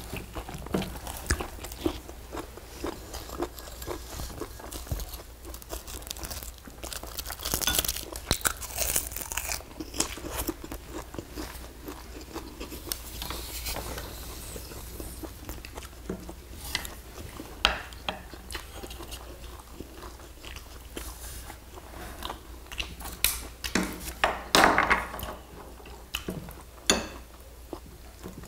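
Close-up eating sounds: chewing and crunching of food such as kimchi, with short, irregular clicks of chopsticks against ceramic bowls and plates.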